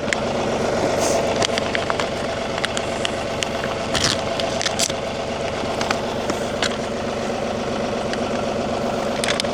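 A tractor engine idling steadily, with scattered scraping and clicking as seed corn is poured into a planter hopper.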